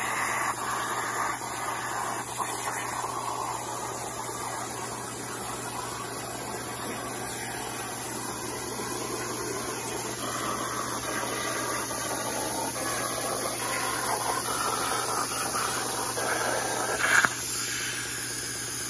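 Hypertherm 65XP plasma cutter's torch cutting steel sheet on a CNC table: a steady loud hiss of the air-plasma arc. About 17 seconds in there is a sharp pop, after which the arc is out and a thinner hiss of air continues.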